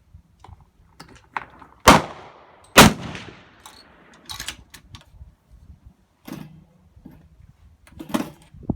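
Suppressed 6.5 Creedmoor rifle shots: two sharp reports about a second apart, the second trailing off, followed by scattered lighter clicks and knocks.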